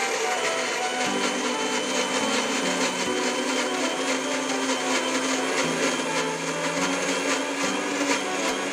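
Electric countertop blender running steadily, churning eggs, lemon juice, sugar and soybean oil that are thickening into mayonnaise; its hum shifts in pitch now and then.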